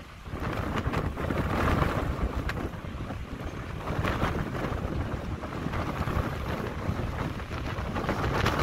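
Wind buffeting the microphone in uneven gusts over a steady low rumble from a large oil tanker passing close by.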